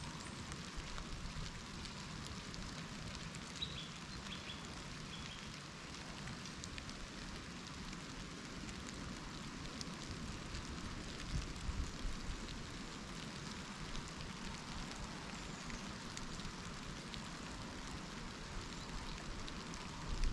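Steady outdoor background hiss, with a few faint, high bird chirps a few seconds in and a couple of low bumps near the middle.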